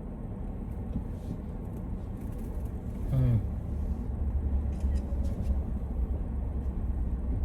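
Car driving, a steady low rumble of engine and tyres that grows louder about halfway through. A brief voice sound comes about three seconds in.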